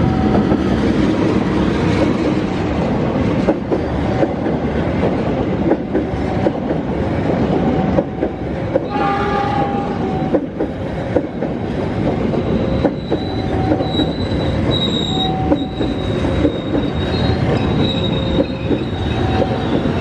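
Freight-and-parcel train passing close by behind a diesel-electric locomotive: a loud steady rumble of wagons with rapid clattering of wheels over rail joints. A thin high wheel squeal runs through the second half.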